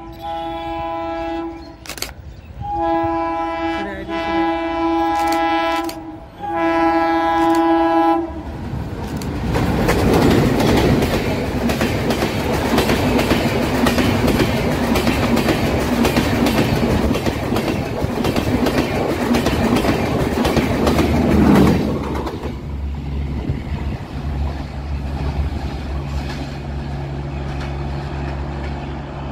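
WDM3D diesel locomotive's multi-tone horn sounding three long blasts as it approaches. The locomotive and its coaches then pass close at speed with a loud rush and a rapid clatter of wheels over rail joints. About two-thirds of the way through the rush ends and a low steady hum remains as the train moves away.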